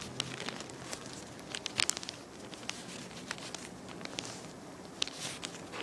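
A strip of paper being folded and creased by hand: faint crinkling and rustling with a few sharper crackles, the loudest about two seconds in.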